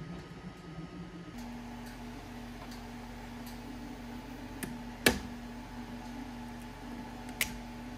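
Bambu Lab X1 Carbon 3D printer running a print, with a steady hum. After about a second comes a different steady machine hum, and a few sharp clicks as a hand reaches into the open printer to take the finished print off the build plate, the loudest about five seconds in.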